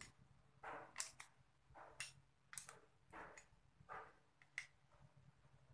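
Faint, repeated scrapes and sharp metallic clicks of a combination wrench turning the nut on a brake master cylinder push rod, about six strokes, one every two-thirds of a second or so.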